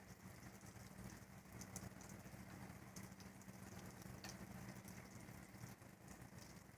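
Faint rain pattering, with scattered sharp drips.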